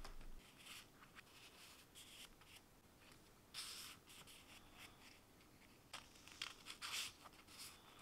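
Faint rustling and sliding of an album's plastic photo sleeves and Instax mini prints as the prints are pushed into the pockets, in a series of short scrapes; the longest comes about three and a half seconds in, with a cluster around seven seconds.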